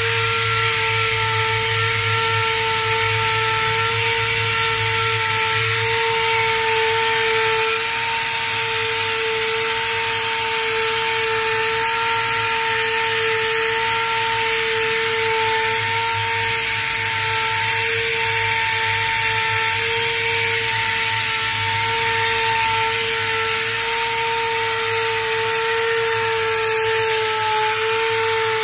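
Portable crankshaft grinding machine running steadily: a constant motor whine over a hiss and a low hum.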